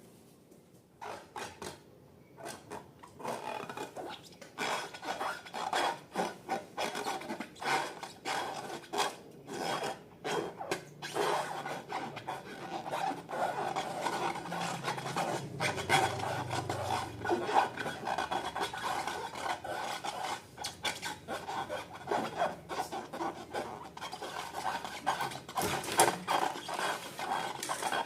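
Slime being mixed: a dense, irregular run of sticky crackles and small pops with a rasping rub. It starts about a second in and grows louder a few seconds later.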